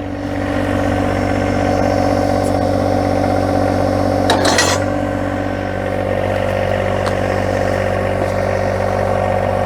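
John Deere 1025R compact tractor's three-cylinder diesel engine running steadily, growing a little louder just after the start. A brief clatter comes about four and a half seconds in.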